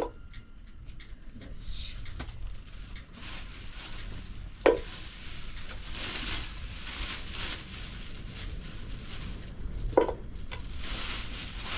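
Food sizzling in a pan while being stirred, a fluctuating hiss, with two sharp knocks, about five seconds apart, from a utensil or pot.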